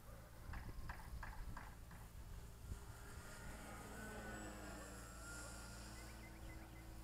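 Radio-controlled Pietenpol model plane flying past, its faint motor drone dropping steadily in pitch from about three seconds in as it goes by. Before that comes a quick run of five light taps.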